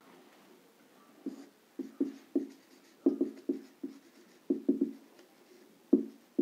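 Marker pen writing on a whiteboard: a run of short, irregular strokes and taps as letters are written, starting about a second in.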